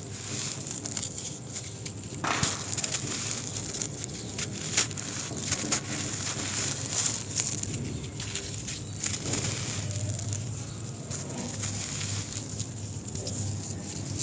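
Hands crushing and crumbling dry lumps of sand-cement mix: a dense, continuous crunch of many small crackles as the lumps break apart and grit falls, with a louder crunch about two seconds in.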